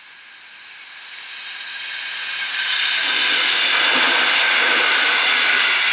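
Passenger train passing a railroad crossing. Its noise builds over the first three seconds to a loud, steady rush with a high whine.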